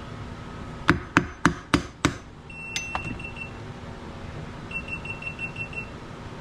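Five quick hammer blows on a nut threaded onto a boat's steering-helm shaft, knocking loose a steering wheel stuck on the shaft. A few seconds later come two runs of short, high electronic beeps, a camera's overheating warning.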